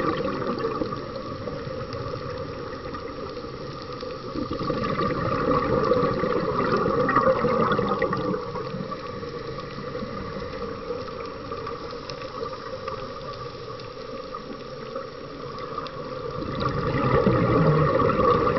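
Scuba diver's exhaled bubbles rushing and gurgling out of the regulator, heard underwater. It swells twice with each breath out, a few seconds in and again near the end, with a quieter watery hiss between.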